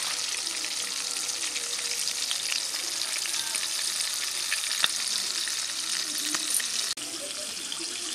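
Flour-coated chicken pieces deep-frying in hot oil in a wok: a steady sizzle full of fine crackling, with one sharper pop about five seconds in.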